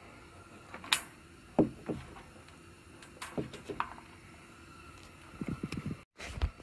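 Handling noise: scattered light clicks and knocks as a plastic wiring plug and its taped harness are moved about by hand. A brief dropout and a thump come near the end.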